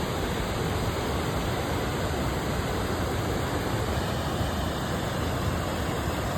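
Floodwater pouring through the fully opened gates of a river dam, a steady rushing of turbulent water. This is high flow: the river is at its maximum level and still draining heavy rain.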